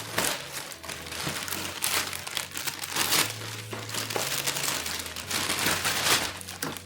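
Packaging being unwrapped by hand: continuous crinkling and rustling of wrapping material with irregular crackles.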